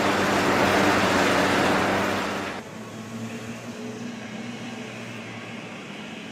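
Large excavator's diesel engine running under load with loud mechanical noise. About two and a half seconds in it changes abruptly to a quieter, steady engine drone.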